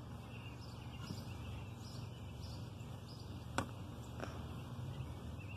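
Quiet outdoor ambience: faint bird chirps over a steady low rumble, with one sharp click about three and a half seconds in.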